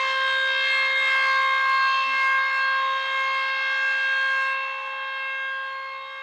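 A steady siren-style alarm tone from an emergency alert, held at one pitch with a bright, many-layered sound, slowly fading toward the end.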